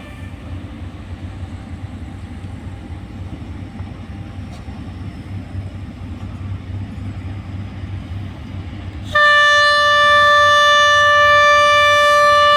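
DF4B diesel-electric locomotive running with a low rumble as it approaches. About nine seconds in, it sounds a long horn blast on one steady note.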